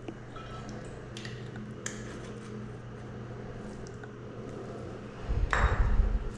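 Light clicks and clinks of small hard objects over a steady low hum, then a loud low rumble lasting about a second near the end.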